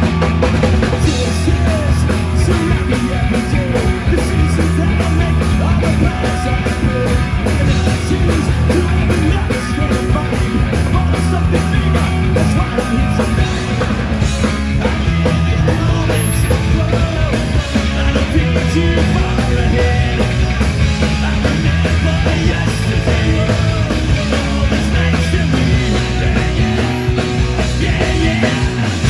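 A rock band playing loud, with a driving drum beat, heavy bass and electric guitar.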